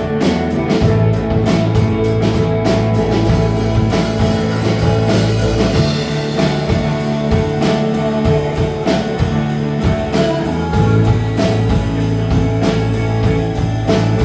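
Live rock band playing, guitar and drum kit, with a steady beat.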